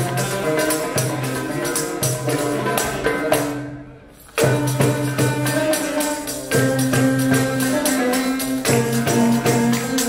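Live ensemble music led by violin and oud, with a steady beat of sharp percussion hits. The music fades about four seconds in and cuts back in abruptly.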